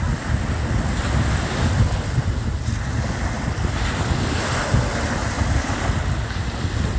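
Wind buffeting the microphone with a steady low rumble, over the wash of surf on the beach.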